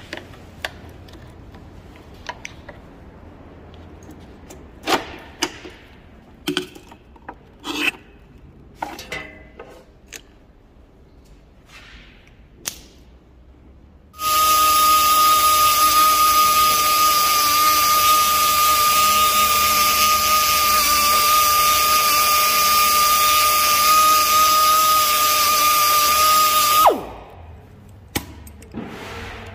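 Scattered light clicks and knocks of hand tools working at a battery terminal. Then an electric power tool runs at a steady speed for about thirteen seconds, a loud hiss with a steady whine. It is switched off and its whine falls away as it winds down.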